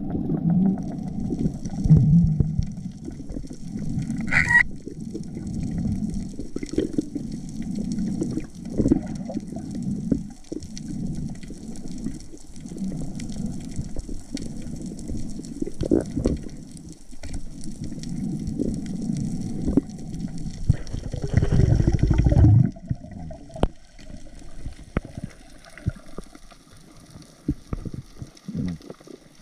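Muffled underwater rush and gurgle of water moving past a swimming diver, with irregular surges and one louder swell about three quarters through.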